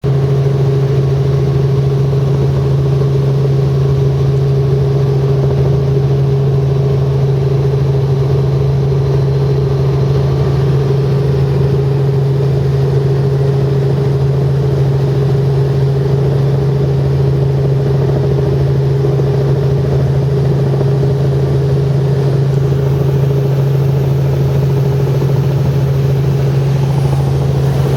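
Helicopter in flight heard from on board: a loud, steady engine and rotor drone with a strong constant low hum that does not change in pitch.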